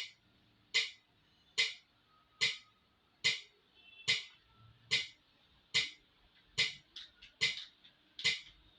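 Metronome ticking steadily at about 72 beats a minute, with a few fainter extra clicks between the beats near the end.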